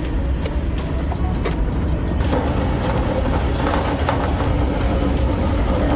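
Datsun 910 Bluebird's engine running through its modified exhaust: a steady, deep exhaust drone. About two seconds in the sound changes abruptly, and a steadier, higher hum joins the drone.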